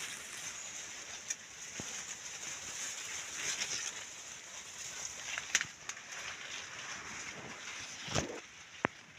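Maize plants rustling and being handled as stalks are pushed back upright, with a few sharp knocks and snaps near the end over a steady high hiss.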